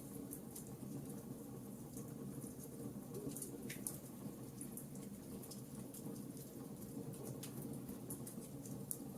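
Wood fire burning in a fireplace, crackling with many small, irregular sharp pops over a steady low rush.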